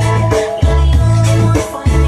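Loud electronic dance music with a heavy, booming bass line and a steady beat, played through a motorcycle-mounted sound system.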